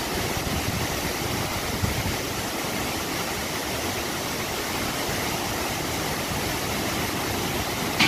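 Waterfall: the steady rush of a large volume of water falling over a cliff onto rocks.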